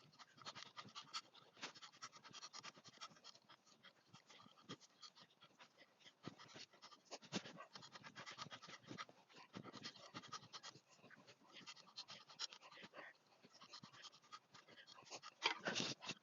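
Faint, rapid, irregular crackling and scratching of dry fallen leaves and grass clippings being worked over a garden bed, in sped-up footage.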